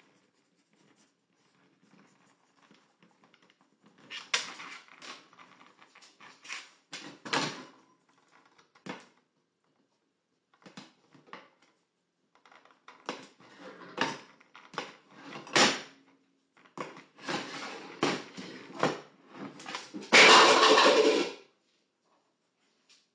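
A metal pan with a lid knocking and scraping against the gas hob's pan supports in scattered clanks as a dog tugs it by the handle. Just after the 20-second mark comes a loud clatter lasting over a second as the pan is dragged off the hob.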